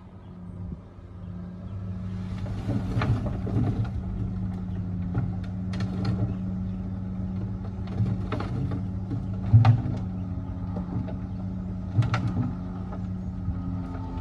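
Heavy diesel earthmoving engine running steadily, growing louder over the first two seconds, with sharp metallic knocks every second or two.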